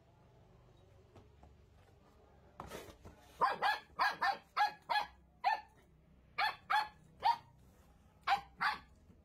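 Puppy barking in short, high yaps, about a dozen in quick bunches starting a couple of seconds in.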